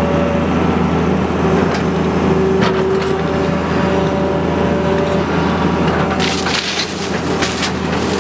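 Excavator's diesel engine running steadily with a whine from the machine while its grapple tears into a wood-frame house: timber cracking and splintering, a couple of sharp cracks early and a dense run of splintering from about six to eight seconds in.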